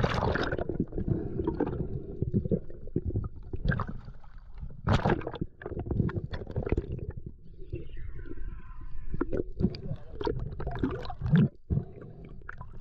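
Water splashing and gurgling around a camera moving between the surface and underwater, with frequent knocks and bumps as a speared shark is gripped and handled.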